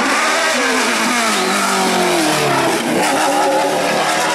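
Rally car engine revving hard as the car races past: its note falls over the first two and a half seconds, then climbs again as it pulls away.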